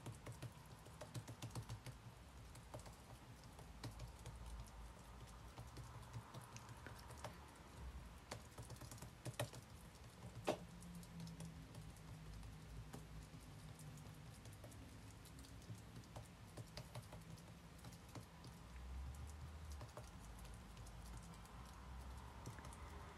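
Faint, irregular soft taps and pats of fingertips and palms on a thin, oiled sheet of dough as it is stretched out by hand on a table, with a couple of sharper clicks about ten seconds in.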